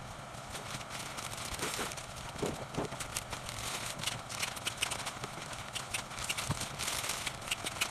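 Wrapping paper rustling and crinkling while a bouquet is wrapped, with irregular light clicks and taps.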